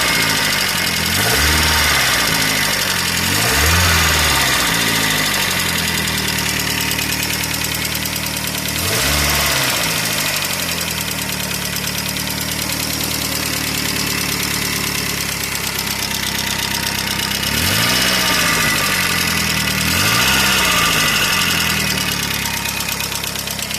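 Volvo S40's 2.0-litre 140 hp engine idling and being blipped, rising and falling in pitch three times near the start, once in the middle and twice near the end. It runs with a knock that the owner places in the cylinder head.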